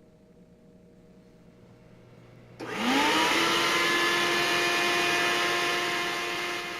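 Vacuum cleaner switched on about two and a half seconds in, its motor whining up in pitch and then running steadily.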